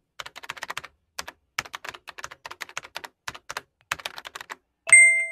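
Typing sound effect: quick, irregular keystroke clicks as text is typed out, then a single bright bell ding near the end.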